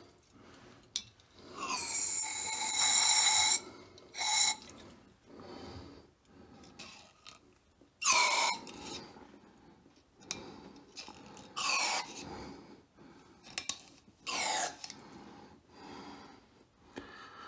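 Aerosol brake cleaner sprayed through an extension straw into the engine block's head-bolt holes, flushing oil out of the threads. It hisses in about five bursts: a long one of nearly two seconds, then four shorter ones a few seconds apart.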